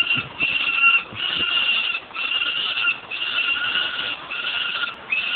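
Peregrine falcons calling at the nest ledge while an adult feeds on prey: a run of about seven harsh, drawn-out, high-pitched calls, one after another with short gaps, typical of begging for food.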